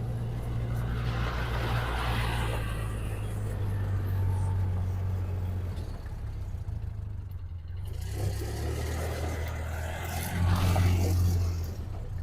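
A farm vehicle's engine runs while it drives, a steady low drone that shifts slightly in pitch, with a louder stretch near the end.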